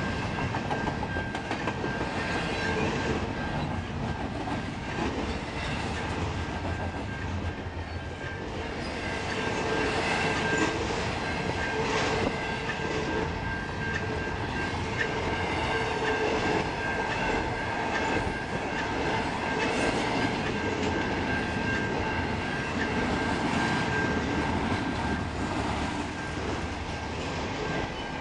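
Double-stack container freight train rolling past, its cars' wheels rumbling and clacking steadily on the rails, with a steady high tone underneath.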